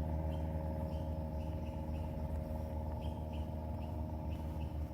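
A steady low mechanical hum, like a motor or engine running, with a faint short high chirp repeating every half second or so.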